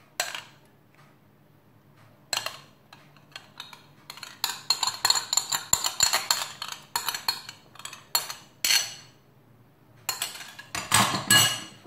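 Metal cutlery scraping and tapping against a bowl as the last of a sour-cream sauce is scraped out. A few single clinks come at first, then a quick run of many ringing clinks from about four seconds in, and another cluster near the end.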